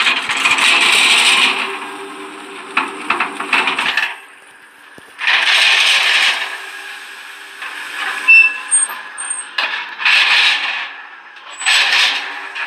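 Filleted fish cooking in a hot oven: a hissing sizzle with sharp crackles, swelling in surges a few seconds apart over a faint steady hum.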